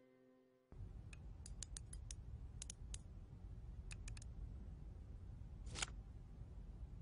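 Small mechanical clicks from an old large-format bellows camera being handled and adjusted: a scattered run of sharp ticks over a low steady hum, then one louder click about six seconds in. A held musical note fades out at the very start.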